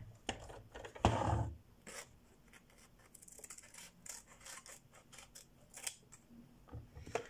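Small scissors snipping the edges off a paper sticky note: a series of short, sharp snips, with one louder, longer noise about a second in.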